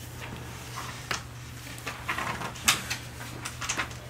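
Thin Bible pages being turned and handled: several short papery rustles.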